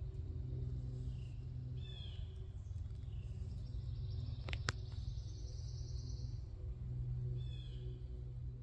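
Outdoor woodland ambience under a steady low rumble. Short bird chirps come about two seconds in and again near the end. In between, a high buzzy trill runs for a couple of seconds, with a single sharp click in the middle of it.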